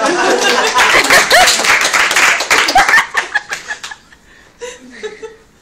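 Audience clapping and laughing, loud at first and dying away about four seconds in.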